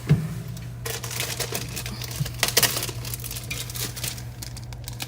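Hands rustling and crinkling packaging while unpacking a wine fridge, with a sharp knock just after the start and many small clicks and crackles in the busy middle stretch. A low steady hum runs underneath.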